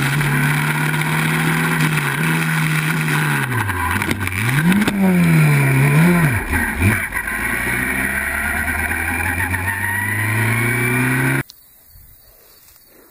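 Open-wheel race car's engine, heard from its onboard camera, running at high revs. About four seconds in, the pitch drops and swings up and down several times with a few knocks, then climbs steadily again. It cuts off suddenly near the end, leaving only a faint background.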